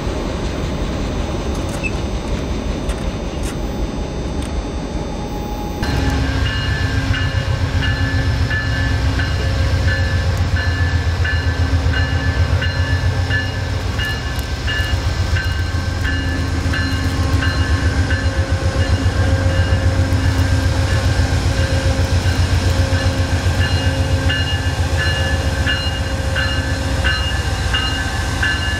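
Freight cars rolling past with a steady rumble. About six seconds in this gives way to an Amtrak train led by a GE P42DC diesel locomotive, moving through a station with a throbbing engine drone and a high ringing tone repeated about twice a second.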